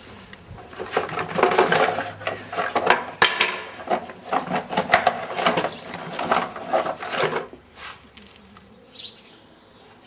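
A run of clattering and knocking, as wooden furniture and objects are bumped and shoved about, dense for several seconds and then thinning to a few knocks near the end.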